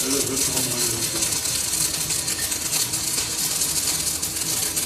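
Metal being cut on a lathe: a steady high hiss with a fine, rapid crackle as the tool works the steel roller.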